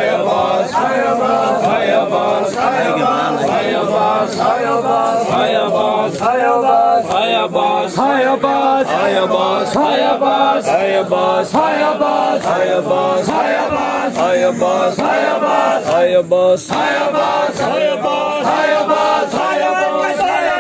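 A crowd of male mourners chanting together in a steady rhythmic lament, over a regular beat of sharp matam strikes.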